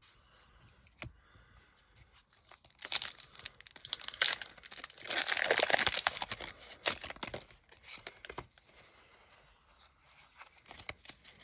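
Foil Pokémon TCG booster pack wrapper being torn open and crinkled, loudest around the middle, with a few sharp light clicks before and after.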